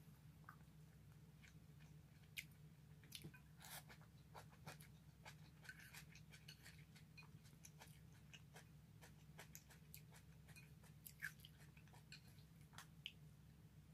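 Faint close-up chewing of sautéed cabbage, with scattered soft clicks and mouth sounds as wooden chopsticks pick food from a plate, over a steady low hum.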